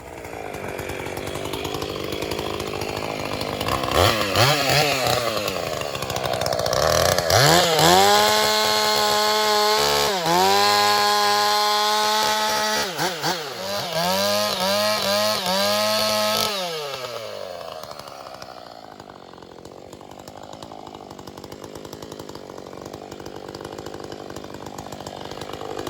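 Two-stroke chainsaw running. It builds to high revs over the first several seconds and holds there with several short dips and blips. About two-thirds of the way in it drops back to a lower steady idle, then revs up again at the very end.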